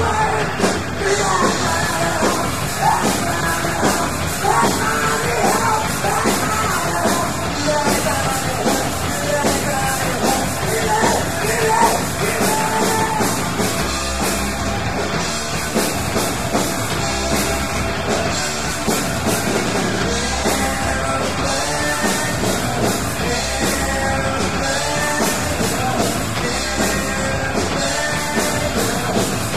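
Rock band playing live, taped from the audience: distorted electric guitar, bass and drums, with shouted singing over them for the first part.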